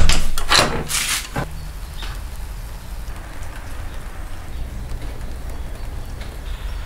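A door opened by its lever handle: several clunks and rattles of the latch and door in the first second and a half, the loudest right at the start. After that, only a steady low background rumble.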